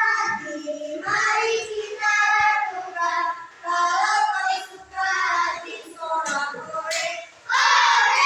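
A group of children singing a song together, louder near the end.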